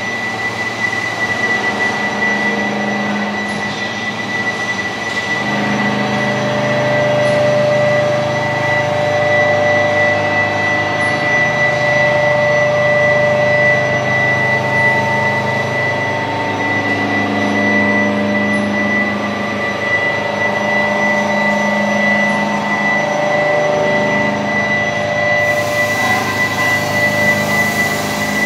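Steady mixed drone of machine tools running in a machine-shop hall, with a constant high-pitched whine over lower hums that shift every few seconds. Near the end a loud hiss joins in.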